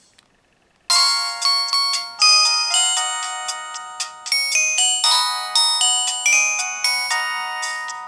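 Samsung X680 flip phone playing a polyphonic ringtone preview through its small speaker. After a moment of silence, a bright melody of chiming, bell-like notes starts about a second in and goes on without pause, each note ringing out and fading.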